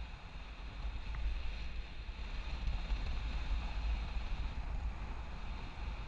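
Wind of a paraglider's flight rushing over the microphone: a steady low buffeting with a fainter hiss above it.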